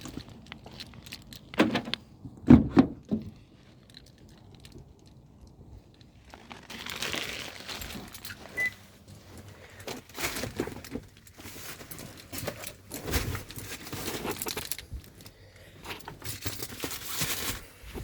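Keys jangling with rustling handling noise, and a few sharp knocks about two seconds in.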